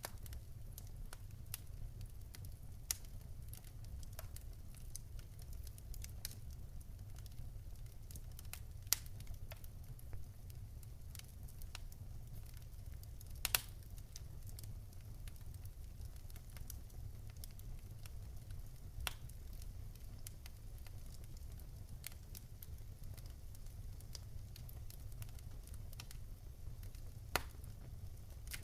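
Campfire crackling: scattered sharp pops and snaps over a low, steady rumble, with the loudest pop about halfway through.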